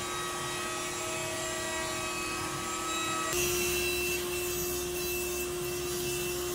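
Router table running with a steady tone as a roundover bit shapes the edge of a wooden rail. About three seconds in it changes abruptly to a SawStop table saw running and cutting through the rail, with more low rumble and hiss.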